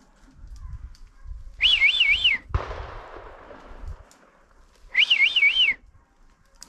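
Two loud warbling whistles about three seconds apart, each wavering up and down three times. Just after the first, a single sharp crack with a long echoing tail: a gunshot during the deer drive.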